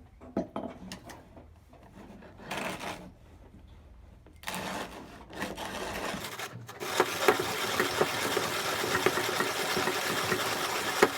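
Zassenhaus 185 'Record' manual conical burr coffee grinder being hand-cranked through a dose of coffee beans on its finest setting. The burrs crunch the beans in scattered crunches at first, then, from about four seconds in, in a continuous crackling grind that grows louder about seven seconds in.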